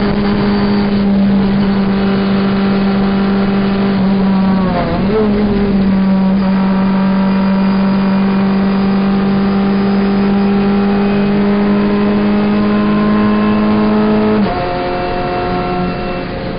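Renault Clio Cup race car's four-cylinder engine heard from inside the cockpit, running hard and steady at high revs. About five seconds in the note dips and wavers briefly as the driver shifts down from sixth to fifth, then it pulls steadily again. Near the end a shift up to sixth drops the pitch and the loudness suddenly.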